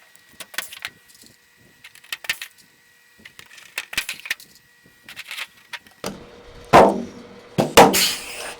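Blind (pop) rivets being pulled one after another in an aluminium part with a rivet gun: a sharp snap about every second and a half. Near the end come a couple of louder knocks and handling rustle.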